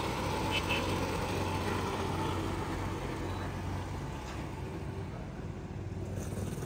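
Street traffic: motor vehicle engines running with a steady low hum, easing off a little past the middle.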